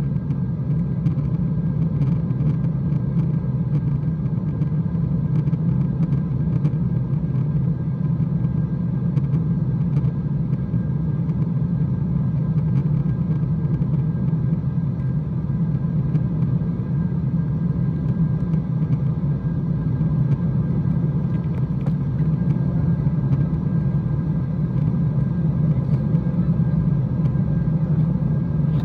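Steady cabin drone of an Embraer E175 jet in flight, its two GE CF34 turbofan engines and the rushing airflow heard from inside the cabin. It is mostly a low hum, with faint steady tones above it.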